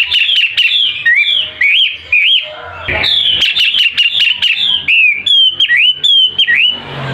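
Caged songbird singing loudly: quick runs of short, falling whistled notes mixed with upward-swooping notes, with a brief pause a little after two seconds before the song resumes.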